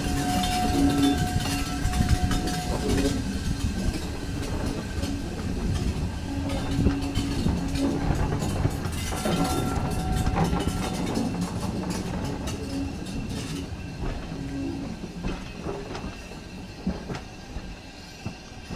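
Steam-hauled train of passenger coaches running out along the track, its wheels clacking over the rail joints and points. The sound fades as the train draws away.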